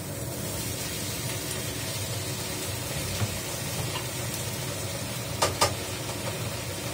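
Sliced bell peppers sizzling in a hot oiled pan with garlic and dried radish, the sizzle picking up at the start as they are tipped in, then stir-fried with a spatula. Two sharp clacks of the spatula on the pan about five and a half seconds in.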